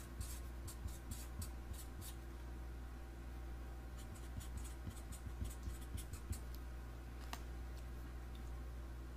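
Pen strokes scratching on paper while drawing: quick bursts of short strokes in the first two seconds and again from about four to six and a half seconds in, over a steady faint low hum.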